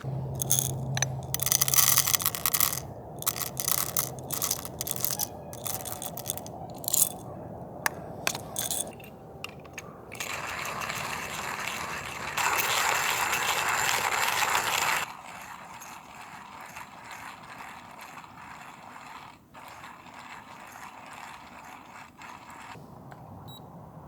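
Rapid irregular mechanical clicking and ratcheting with a low hum at first, then a steady rushing hiss for about five seconds that cuts off suddenly, leaving a quiet background.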